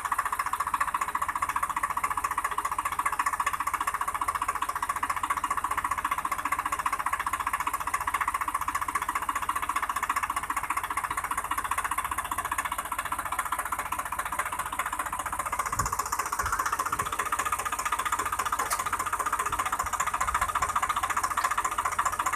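Swaraj 744 tractor's diesel engine running steadily while working the hydraulic tipper that raises a trailer heavily loaded with firewood; the note firms up a little about two-thirds of the way through.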